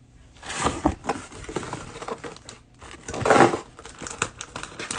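Cellophane wrapping on trading-card packs crinkling and tearing, with small clicks and rustles of handling; the loudest burst of crinkling comes a little past three seconds in.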